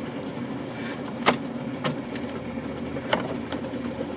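Steady electric hum from an O scale model railroad, with three sharp clicks of parts being handled: one about a second in, one shortly after, and one about three seconds in.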